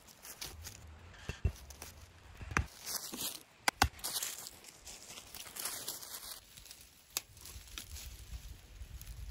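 Footsteps crunching through dry fallen leaves, with rustling and a few sharp clicks and knocks.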